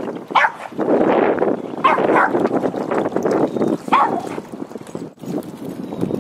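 A dog barking: about three short barks, roughly two seconds apart.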